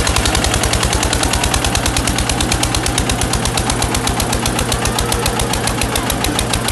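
Diesel tractor engines under heavy load in a tug-of-war, the nearer Eicher's exhaust beating in a loud, rapid, even chug.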